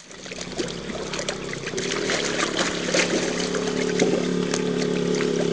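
Baby elephant splashing in a small round basin of water, with irregular splashes and drips over a steady mechanical hum.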